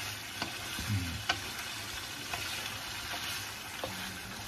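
Pork and chicken adobo with potatoes sizzling in a frying pan while a wooden spatula stirs it, with several light knocks of the spatula against the pan.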